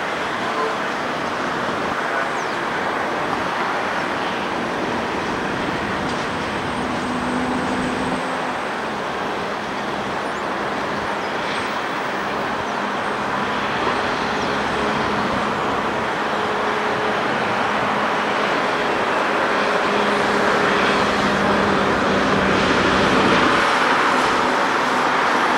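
Airliner jet engines at a distance as jets taxi and roll along the runway: a steady rushing noise with faint engine tones, growing slightly louder near the end.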